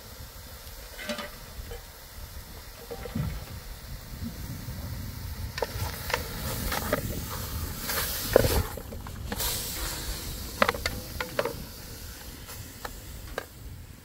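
Wood cooking fire crackling and hissing under a pot of meat, with scattered sharp pops and clicks that come thickest in the second half.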